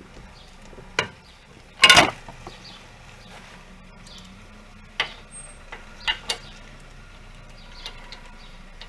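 Metal hand tools clicking and knocking on the wheel hub's rear mounting bolts: a few sharp knocks and one louder, half-second metallic clatter about two seconds in. The bolts are tight.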